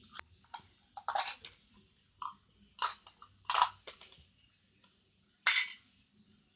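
Hard plastic toy pieces clacking and knocking together as a child handles them: a string of sharp separate knocks, the loudest about five and a half seconds in.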